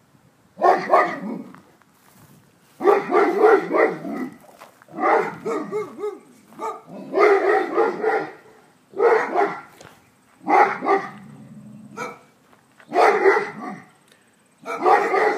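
A large dog barking in repeated bouts, about nine over the stretch, each a second or so long with short pauses between.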